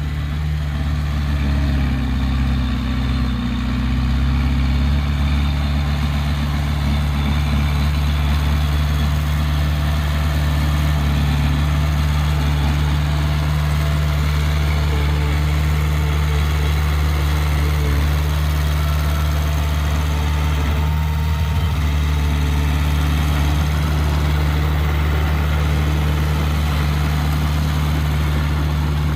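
An engine running steadily with a low, even drone, getting slightly louder in the first few seconds.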